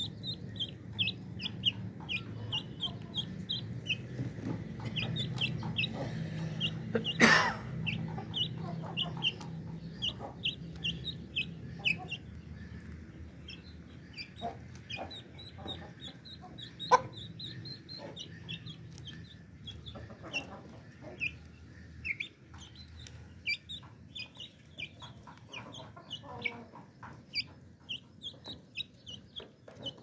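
Thai Aseel chickens feeding: a chick cheeping in short high peeps, a few a second, over low clucking. A sharp knock sounds about seven seconds in and another a little before the middle.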